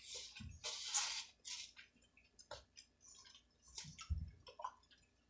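Close-up eating and food-handling noises: a few short rustles in the first couple of seconds, then scattered sharp clicks, with a low thump about half a second in and another about four seconds in.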